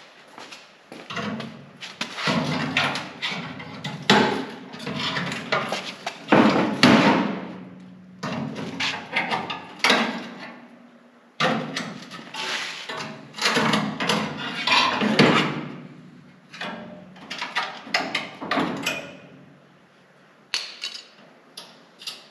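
Hand hammer striking metal in irregular runs of sharp blows, each ringing briefly, over a steady low hum.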